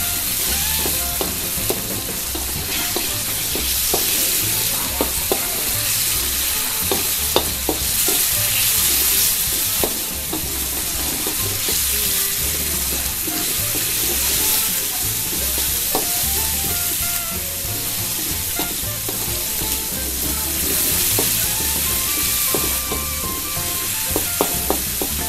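Shrimp with garlic, shallots and chilies sizzling in hot oil in a wok, stirred with a spatula that taps and scrapes against the pan now and then.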